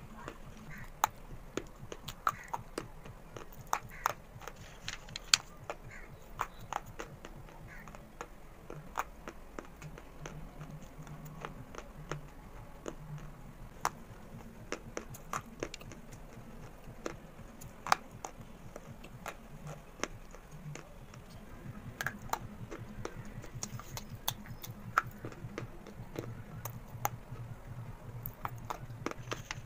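White school chalk sticks being bitten and chewed: dry, crisp crunches and snaps that come irregularly, sometimes several in a second.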